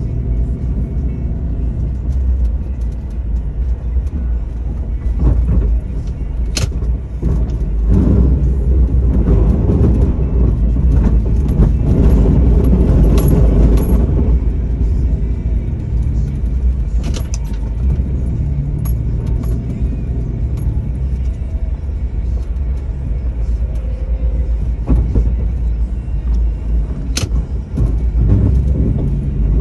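2002 Jeep Liberty with a snow plow working a parking lot: the engine's low drone swells and eases as it pushes snow and backs up. A few sharp knocks cut through it, about three in all.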